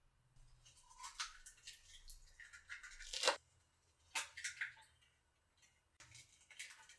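Raw eggs being cracked and dropped onto cooked elbow macaroni and shredded cheese: faint crackly bursts of shell breaking and wet squishing, the sharpest crack about three seconds in.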